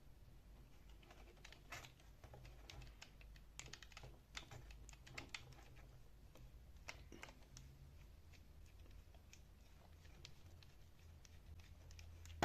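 Faint, irregular clicks and light taps of small drill parts being handled during a restoration, more frequent in the first half, over a low steady hum.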